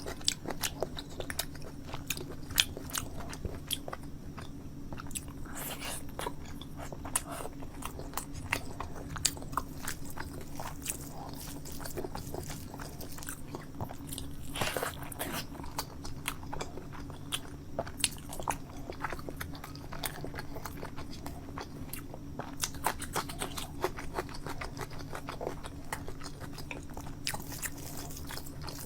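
Close-miked eating: a person chewing and biting with wet mouth smacks, frequent small clicks and occasional crunches. A steady low hum runs underneath.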